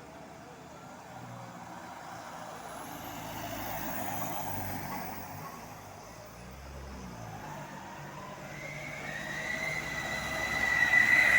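Heavy diesel vehicles, tour buses or trucks, passing on a hill road: engine drone that swells and fades about four seconds in, with its pitch sliding down and up a few seconds later. Near the end a loud, high, steady tone builds as another vehicle approaches.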